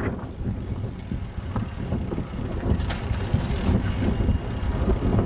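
Steady low rumble of riding a bike along a street, road and wind noise on the microphone, with a faint click about three seconds in.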